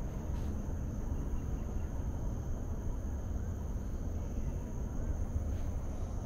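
Outdoor ambience over a forested hillside: a steady low rumble of distant traffic and wind, under a thin, steady high-pitched insect drone.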